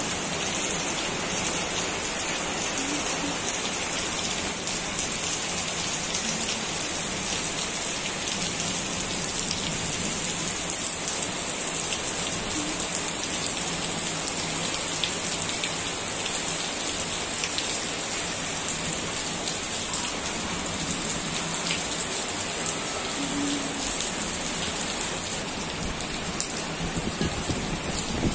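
Heavy rain falling steadily on leaves and splashing into standing floodwater: an even hiss, brightest high up, full of small ticks of single drops.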